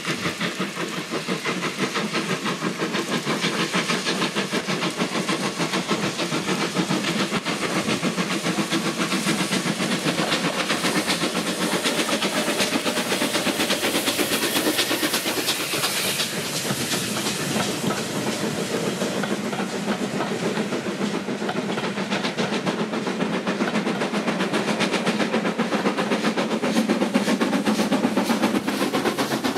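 Steam locomotive working a train, with rapid, evenly repeating exhaust chuffs over a hiss of steam and the rumble of the train on the rails.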